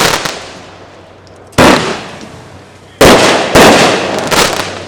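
Consumer 500-gram, 16-shot firework cake firing, its shots bursting in sharp loud bangs that die away over about half a second. There are a few cracks at the start, single bangs about a second and a half and about three seconds in, then two more in quick succession near the end.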